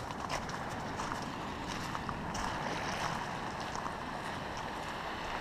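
Steady rushing of wind over the microphone, with a few faint ticks of footsteps on the trail.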